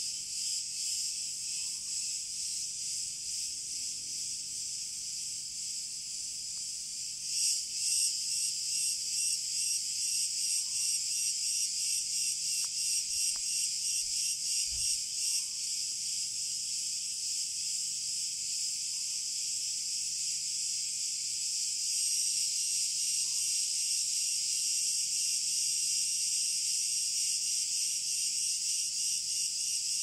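Chorus of cicadas at midday: a dense, high-pitched, shrill buzz. From about a quarter of the way in it pulses roughly twice a second for several seconds, then evens out and grows a little louder.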